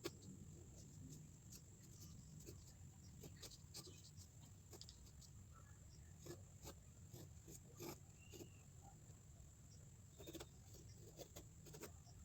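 Near silence: faint scattered ticks and taps over a low hum and a steady high-pitched whine.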